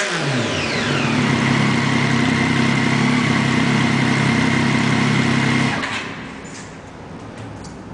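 Triumph Daytona 675 three-cylinder engine breathing through a Jardine aftermarket exhaust. The revs fall back from a blip to a steady idle, then the engine is switched off and cuts out about six seconds in.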